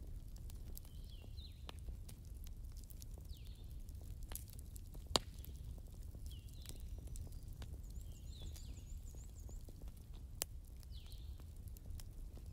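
A bird chirping over and over, short calls about every one to two seconds with a brief high trill about eight seconds in, over a low steady rumble and scattered sharp clicks, the loudest about five seconds in and again near ten and a half seconds.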